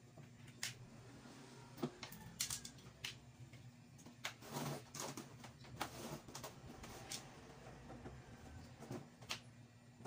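Irregular knocks, clicks and a scrape of a plastic washing machine cabinet being handled and tilted by hand, over a faint steady hum.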